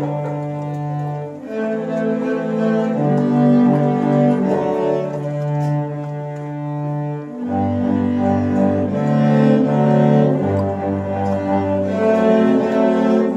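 A cello ensemble playing live: long bowed notes over a low bass line, the notes changing every second or two.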